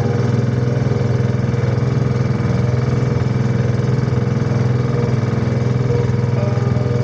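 Engine of a motorized outrigger boat running steadily as the boat moves along, a loud, even, fast-pulsing drone.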